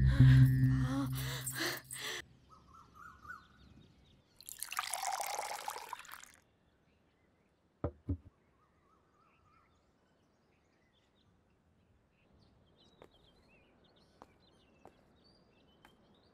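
Film soundtrack: a music cue ends about two seconds in, followed by a rushing noise lasting about two seconds, two quick clicks, and faint bird chirps near the end.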